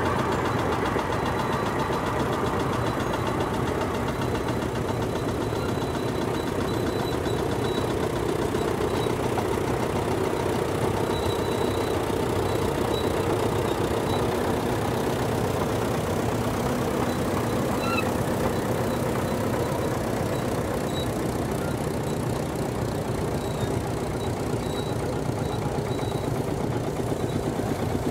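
Marshall tractor engines running steadily, with a knocking beat.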